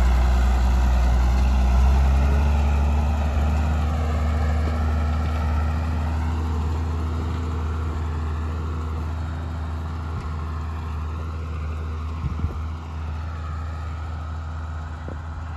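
A vehicle engine running steadily at an even pitch, slowly growing fainter, with a couple of brief knocks near the end.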